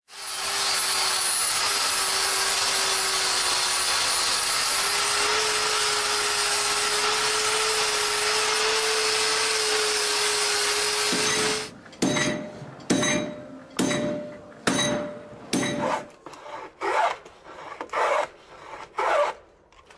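An angle grinder runs and grinds for about twelve seconds, a steady motor whine under a dense hiss that lifts slightly in pitch partway through. Then it stops, and a wooden board is sawn by hand in regular back-and-forth strokes, about ten of them over the last eight seconds.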